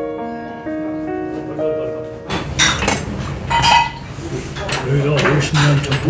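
Soft piano music that cuts off about two seconds in. Then spoons and chopsticks clink against bowls and dishes during a meal at a table, with people talking.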